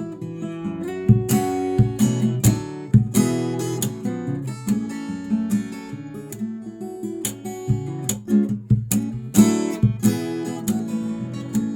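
Solo acoustic guitar played fingerstyle: melody and bass lines plucked together, with sharp percussive slaps on the strings and body mixed into the rhythm.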